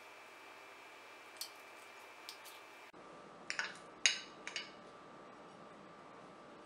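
Kitchen knife blade clicking and tapping against a glass serving plate while cutting set kalakand into squares: a few faint clicks, then a cluster of louder sharp clicks about three and a half to four and a half seconds in.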